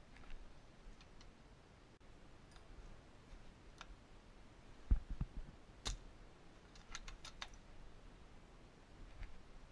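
Scattered faint clicks and knocks. The loudest is a short cluster of dull thumps about five seconds in, followed by a sharp click, with a quick run of several clicks a second or so later.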